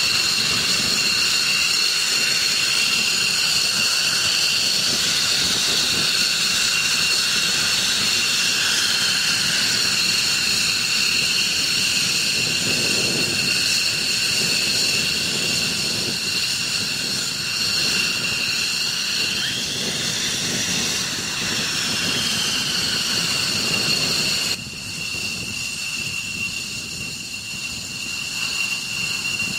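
McDonnell Douglas F-15E Strike Eagle twin turbofan engines running at taxi power: a steady high turbine whine over a low rumble, its pitch sliding up and down a couple of times. About 25 seconds in the sound suddenly drops quieter.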